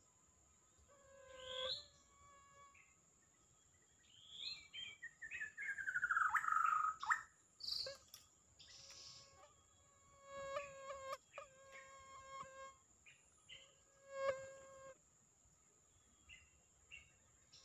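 White-rumped shama (murai batu) singing in a string of clear whistled notes and phrases. The loudest is a long falling slur about five to seven seconds in. A thin, steady high-pitched whine runs behind it.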